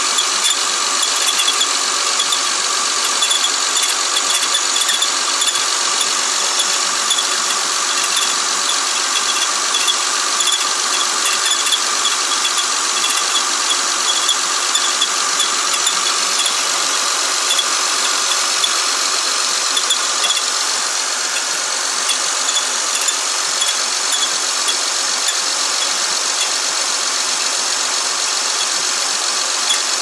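2004 Honda Accord 3.0 V6 engine running, with a steady, rapid ticking over it from the engine bay. This abnormal noise was traced to a failing water pump.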